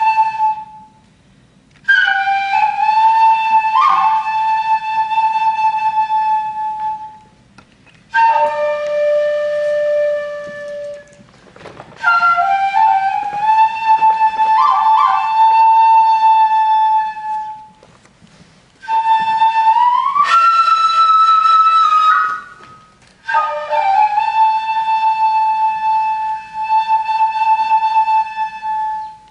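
Japanese Noh flute (nōkan) played solo: long held notes with bends and swells, in about six phrases broken by short pauses, with sharp upward slides into higher notes, one about two-thirds of the way through.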